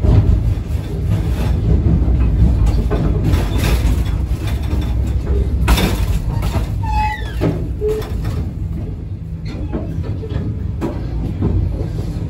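Wheels of a 25G passenger coach running on the track, heard from inside the moving train: a steady low rumble with irregular clacks as the wheels cross rail joints and switches, and a brief high squeal about seven seconds in.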